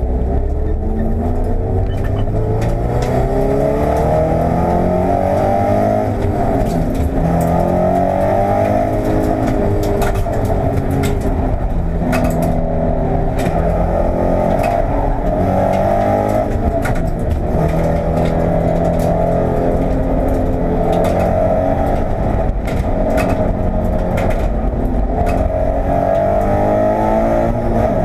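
Toyota 86 race car's 2.0-litre flat-four engine heard from inside the cabin, accelerating hard through the gears: the revs climb and drop back at each shift, over and over. Scattered sharp clicks and rattles run through it.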